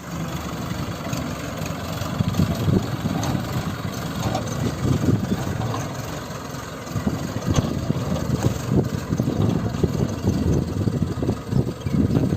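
Mahindra Arjun Ultra 555 DI tractor's diesel engine running with an uneven low pulsing, louder after about seven seconds.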